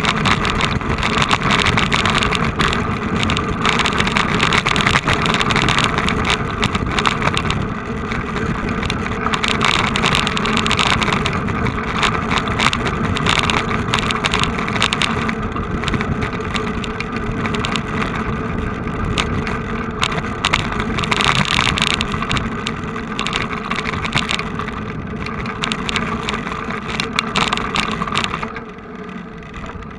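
Vehicle engine and road noise, loud and steady, with a rough, fluttering texture; it drops off sharply near the end.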